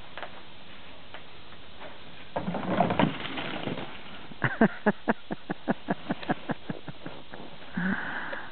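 A person laughing hard: a quick run of short 'ha' pulses, about five a second, that tails off. Before it comes a brief noisy crash.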